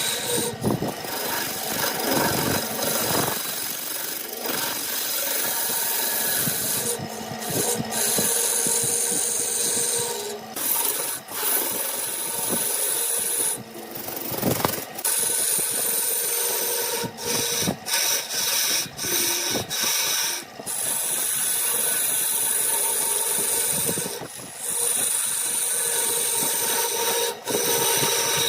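Wood lathe running while a turning tool scrapes and cuts the spinning workpiece, with a steady whine under the rasping cut. The cut breaks off briefly several times as the tool is lifted.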